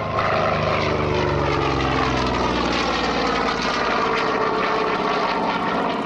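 Vought F4U Corsair's radial engine and propeller, loud as the fighter flies close past; the engine's pitch falls over the first few seconds as it goes by.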